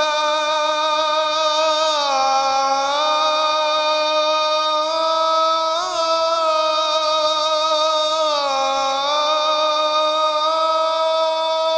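A muezzin's voice singing the Maghrib call to prayer (adhan), holding one long drawn-out note with two slow dips in pitch and a brief waver near the middle.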